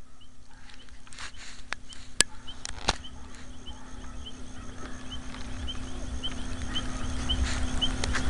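Mountain bike rolling along a dirt road, with tyre and wind rumble on the camera microphone growing louder as speed picks up. There are two sharp knocks from bumps about two and three seconds in, and a faint short chirp repeats at an even pace throughout.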